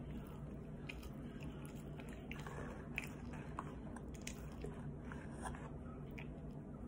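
A person chewing a mouthful of food close to the microphone, with irregular small clicks and smacks of the mouth.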